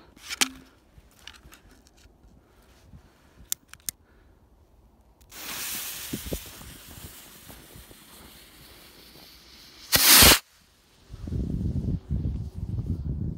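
Firework stick rocket (the gold rocket from Phantom Fireworks' Flatlined assortment): a few small clicks, then the rocket launches with a sudden rushing hiss about five seconds in that fades as it climbs, and bursts with one short, very loud bang about ten seconds in, followed by a low rumble.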